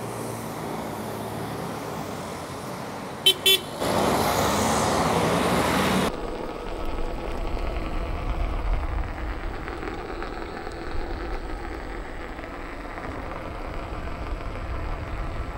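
Street traffic with two short car-horn toots about three seconds in, then a louder rush of noise for about two seconds. After a sudden change about six seconds in, the tyre of a Leaperkim Sherman electric unicycle rolls over cobblestones with a steady low rumble.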